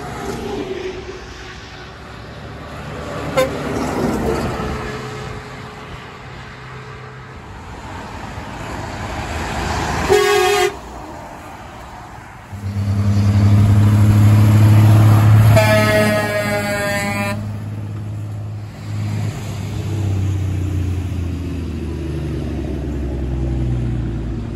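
Semi trucks passing at road speed. A Volvo VNL semi's Hadley H00640YV air horn gives a short toot about ten seconds in. Its engine then rumbles close by as it passes, and the horn sounds a longer blast of about a second and a half around sixteen seconds in.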